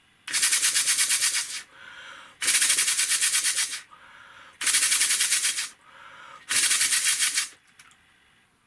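Paper single-cylinder air engine, mouth-blown through a tube, running in four bursts of rapid, even clattering, each lasting about one breath. Quieter breaths are drawn between the bursts. The engine needs a lot of blowing to keep running.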